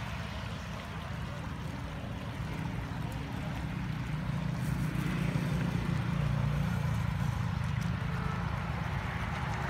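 Muddy floodwater rushing steadily through a channel, with a passing vehicle's engine rumbling and growing louder through the middle.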